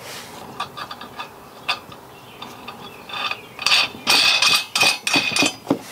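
Steel nuts being spun by hand onto threaded bolts, with light metallic clicking and rattling on the threads that gets denser and louder in the last two seconds or so.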